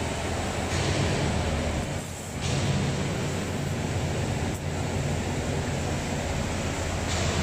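Steady industrial machinery noise: a low hum under an even hiss, dipping briefly about two seconds in.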